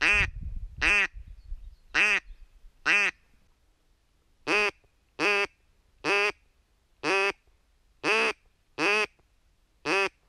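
Hand-held duck call (manok) blown in short single quacks imitating a duck: four about a second apart, a short pause, then seven more.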